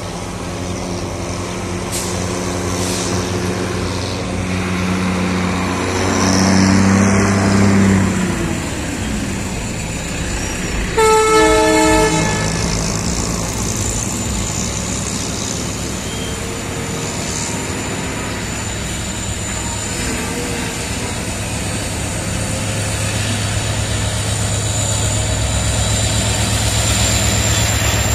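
Diesel freight locomotives approaching, their engines running with a steady low drone that grows louder near the end as they come alongside. About eleven seconds in, the locomotive horn sounds once for a little over a second.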